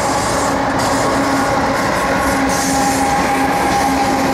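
Diesel-hauled freight train passing close by, led by Canadian Pacific and Kansas City Southern locomotives, with tank cars rolling along the rails. Steady noise of the train, with a constant hum under it.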